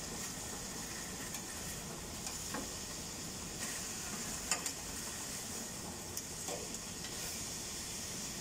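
Marinated chicken pieces sizzling steadily in a square grill pan over a gas flame, with occasional sharp clicks of metal tongs against the pan as the pieces are turned; the loudest click comes about four and a half seconds in.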